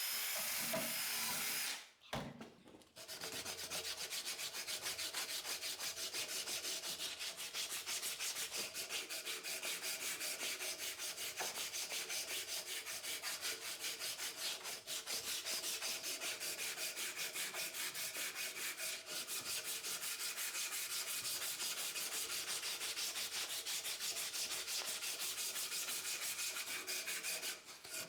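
A power tool whirs for about the first two seconds and stops. Then comes hand sanding: sandpaper rubbed over the hammer in quick, even back-and-forth strokes, kept up steadily.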